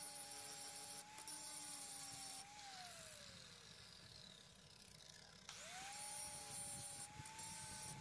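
Corded angle grinder grinding down a multitool's steel jaws with a steady high whine. It is switched off about two and a half seconds in and its pitch falls as the disc winds down. It is started again about five and a half seconds in, and its whine rises back up to full speed.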